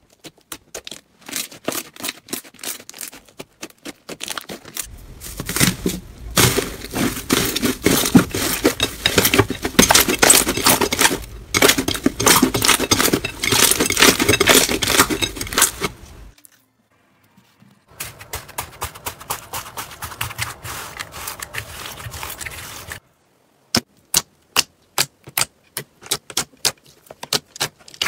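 Slime being squished and poked by hand close to the microphone, making rapid sticky clicks and crackling pops. The sound is broken by two short silent gaps between clips, and the middle stretch is the densest and loudest.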